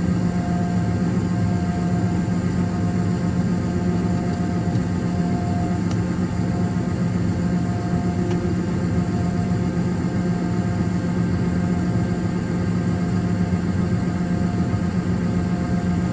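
Combine harvester running steadily under load while harvesting corn: an even engine and machinery drone with a constant low hum and fainter steady whine above it.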